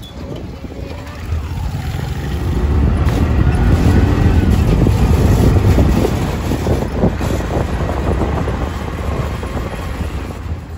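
A moving car's road and engine noise heard from inside the cabin: a steady low rumble that swells in the middle and then eases off.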